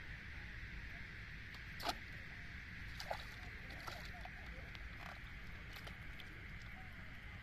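Hooked fish splashing at the water's surface as it is pulled in on a bamboo pole rod. There are two sharp clicks, the louder about two seconds in and another about a second later, then small splashing ticks.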